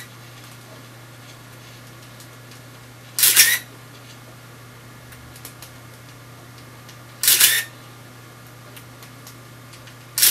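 Contax RX 35 mm SLR with a Carl Zeiss Planar 50 mm f/1.4 firing three times, about four seconds apart, the third right at the end, at slow shutter speeds around 1/30 and 1/60 s. Each release is a short clatter of mirror and shutter followed by the camera's built-in motor winding on the film.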